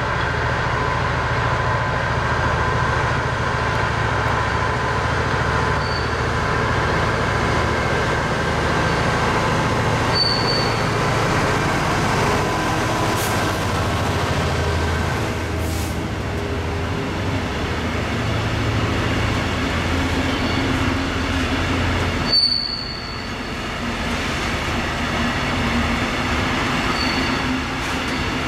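Class 66 diesel locomotive hauling a long train of loaded coal wagons past, its engine running as it draws near and goes by. The wagons follow with a steady rumble of wheels on rail, broken by brief high wheel squeals every few seconds.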